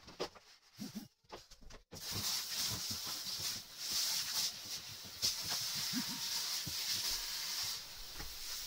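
A sponge rubbing on a bathroom wall with a few light knocks, then from about two seconds in a handheld shower head spraying water steadily onto the wall to rinse it. The spray's hiss softens near the end.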